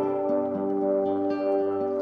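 Background music: calm, ambient new-age piece with sustained, ringing tones and slowly changing notes.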